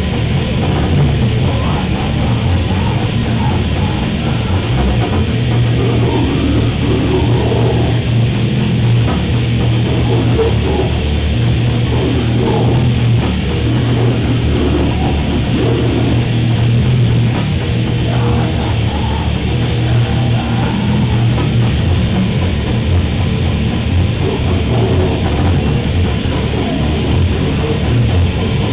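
A rock band playing loud, distorted heavy music live: electric guitars over a drum kit, dense and unbroken throughout.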